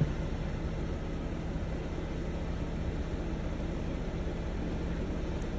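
Steady low rumbling background noise with a faint hum running through it, with no distinct knocks or voices.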